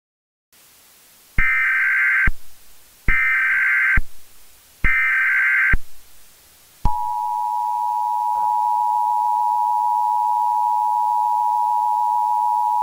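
Emergency Alert System tones. Three bursts of SAME header data tones, each just under a second long, are followed about seven seconds in by the steady two-tone EAS attention signal, which marks the start of a new alert.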